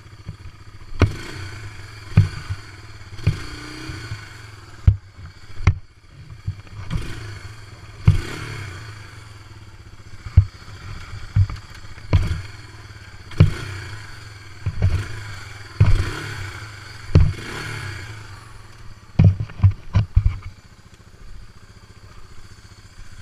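ATV engine running in thick mud, with a run of sharp thumps and clatters about once a second as the quad bounces and jolts. The knocks stop about 20 seconds in, leaving the engine running on its own.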